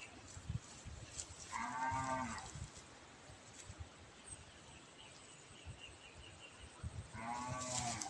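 A young white zebu calf mooing twice, two short bawls, one about two seconds in and the other near the end.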